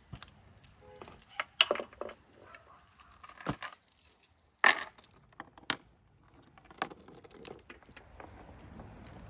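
Heavy steel chain clinking and rattling as it is handled, a run of sharp metallic clicks with short quiet gaps, the loudest a little after a second and a half and just under five seconds in.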